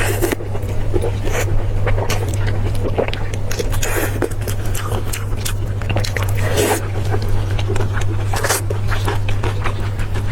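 Close-miked eating sounds: pork being bitten and chewed, with many short clicks and scrapes, over a steady low hum.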